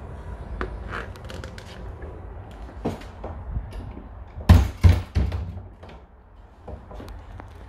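A door shut with a few heavy thumps about four and a half seconds in. Before that there is low rumble and small knocks of handling on the microphone.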